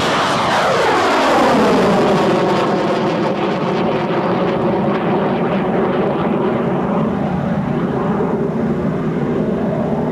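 Guided MLRS XM30 rocket's solid-fuel motor firing at launch: a loud, steady rushing noise with a pitched tone in it that falls steeply over the first two seconds as the rocket accelerates away, then holds level as it climbs.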